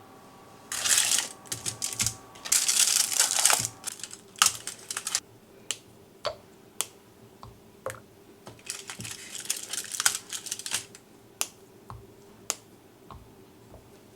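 Kitchen utensils and dishes being handled: several rough scraping passes and many separate sharp clicks and taps, as of a utensil working against a bowl.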